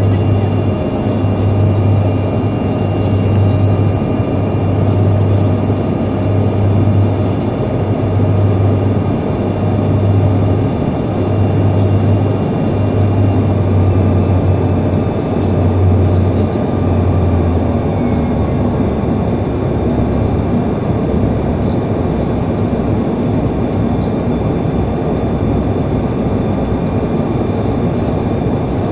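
Airliner engines and airflow heard inside the passenger cabin: a steady loud roar with a thin whine. A low pulsing hum stops about two thirds of the way through.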